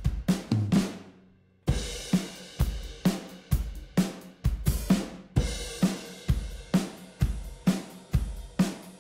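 Recorded drum kit playing a steady groove, kick, snare, hi-hat and cymbals, run through a Rupert Neve Designs 5254 diode bridge compressor that is being switched in and out. The drums stop about a second in and come back in under a second.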